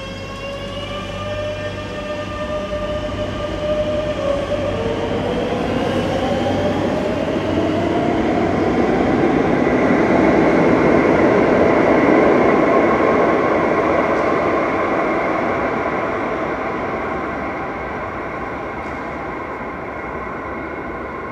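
Madrid Metro electric train pulling out of the station. Its traction motors whine with several tones rising in pitch as it gathers speed, then the running noise swells, peaks about halfway through and fades as the train goes into the tunnel.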